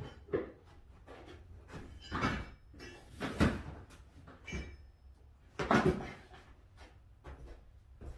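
Irregular clunks and knocks of bikes and tools being shifted around in a small workshop, with the loudest knocks about 2, 3.5 and 6 seconds in.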